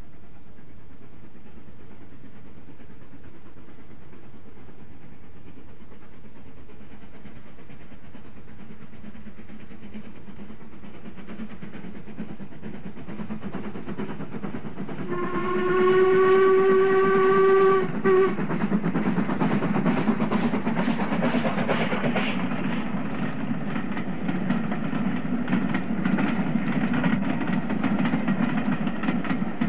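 Steam train approaching and passing: a low rumble slowly building, then the locomotive's steam whistle blown for about three seconds with a short extra toot, followed by a louder, steadily rhythmic beat and rumble as the engine and coaches go by.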